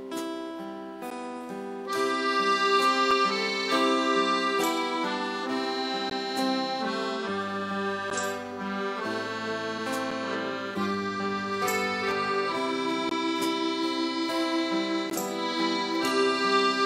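Live acoustic band instrumental: a piano accordion plays the melody over strummed acoustic guitar. The music swells about two seconds in, and low bass notes join about seven seconds in and drop out some five seconds later.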